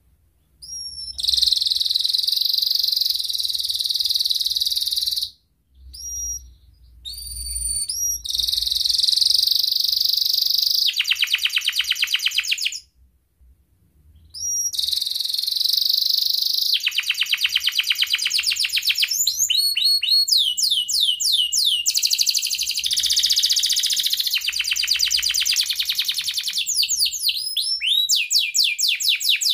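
Domestic canary singing a long song of fast rolling trills and rapidly repeated chirps and whistled notes. There are two short pauses, about five seconds in and about thirteen seconds in.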